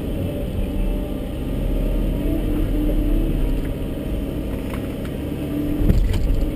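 Volvo EC140 excavator's diesel engine running, heard from inside the cab, with a hydraulic whine coming and going as the boom lowers the bucket. About six seconds in there is one heavy thump as the bucket comes down on the concrete slab.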